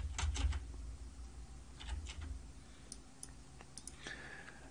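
Scattered clicks of a computer mouse and keyboard, a quick cluster at the start and then single clicks every second or so, over a faint low hum.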